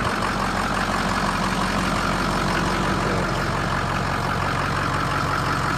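Stock Ford 6.0 Powerstroke V8 turbo-diesel idling steadily, running smoothly.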